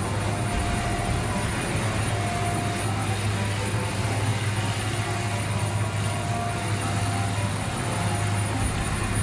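A large engine, such as that of a road-repair machine, running steadily: a constant low drone that neither rises nor falls.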